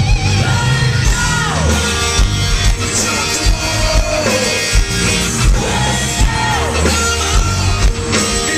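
Live rock band playing loud through a concert PA, heard from among the audience: electric guitar and drums with a steady kick-drum beat, and a male lead singer's voice sliding down in pitch several times in shouted phrases.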